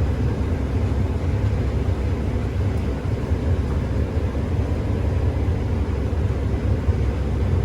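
New Holland combine harvester running while cutting wheat, a steady low drone heard from inside the cab.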